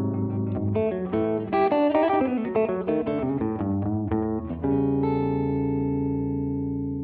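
Background guitar music: a quick run of picked notes, then a final chord struck about four and a half seconds in and left to ring, slowly fading.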